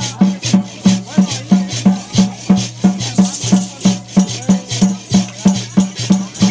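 Mayo deer dance music: a water drum, a half gourd floating in a basin of water, beaten steadily about three times a second, with gourd rattles and cocoon leg rattles shaking on the beat.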